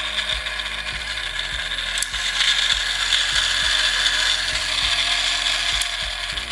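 Trackmaster Turbo Thomas battery toy train running with its newly fitted motor, making a steady gear whir and rattle. It gets louder about two seconds in and eases off near the end, as the working turbo function is shown.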